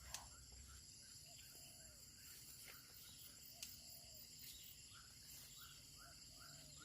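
Near silence with faint outdoor ambience: a steady high insect chirring, likely crickets, with a few faint short bird-like chirps and a couple of small clicks.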